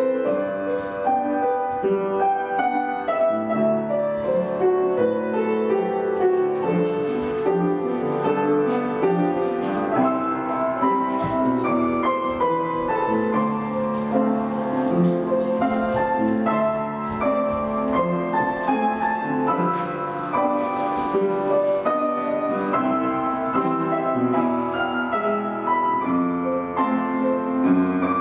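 Piano music accompanying a ballet barre exercise, playing continuously with changing chords and melody.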